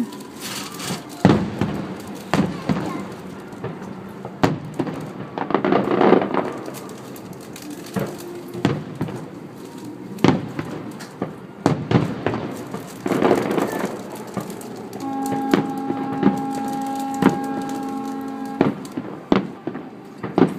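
Fireworks bursting at a distance: a string of sharp bangs and crackles at irregular intervals. Near the end a steady held tone sounds for about three and a half seconds over the bangs.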